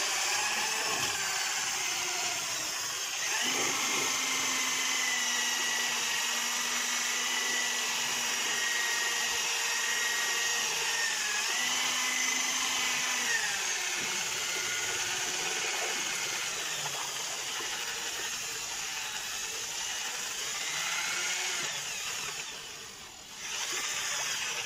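Electric drill with a paddle mixer running steadily, stirring tinted paint. Its motor pitch shifts a few times, and the sound dips briefly near the end before picking up again.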